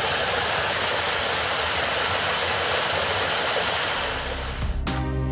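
Water blasting out of the end of a large pipe in a steady, rushing spray. Music comes in near the end.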